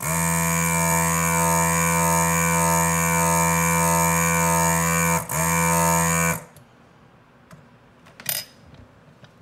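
HAKKO FR-301 desoldering gun's built-in vacuum pump running with a loud, steady buzz as it sucks solder from the board's joints. About five seconds in its pitch sags and recovers, and it stops about a second later. A brief sharp sound follows near the end.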